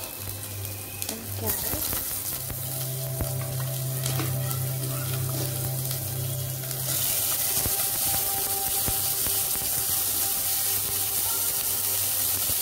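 Garlic sizzling in oil in a stainless steel pot as carrot sticks and broccoli florets are dropped in, with a few light knocks; the sizzle grows louder about seven seconds in. A low steady hum runs underneath.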